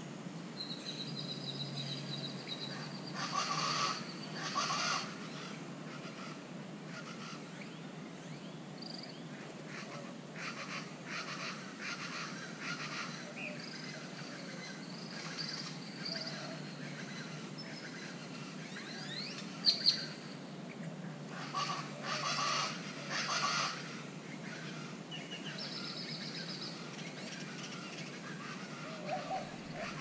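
Birds calling: a steady high whistle in the first few seconds, several loud harsh calls early on and again about two-thirds of the way through, and a few rising whistles. Two sharp clicks come near the middle.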